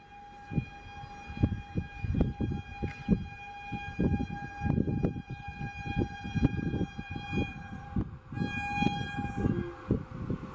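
Horn of a WAP-4 electric locomotive sounding one long steady note as the express approaches at speed. It breaks off for about a second near seven seconds in, then sounds again, over low, uneven rumbling.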